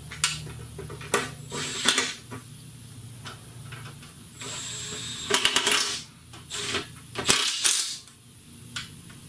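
Hand ratchet clicking and small metal parts clinking in short bursts, the busiest stretch about halfway through, as 10 mm bolts are run into an automatic transmission pan.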